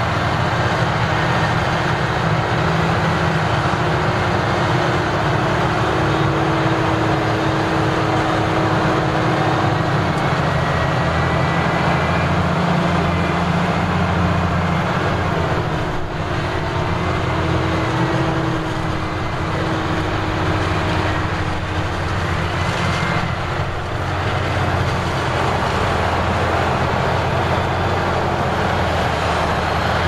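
Claas Jaguar forage harvester chopping maize and blowing it into a trailer pulled by a John Deere 7R tractor: a loud, steady drone of engines and the chopper, with a thin high whine over it.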